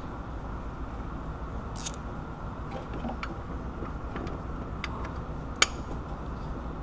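Light metal clicks and taps from a long-handled hand tool being worked at the serpentine belt tensioner, the sharpest click a little over five and a half seconds in, over a steady background hum.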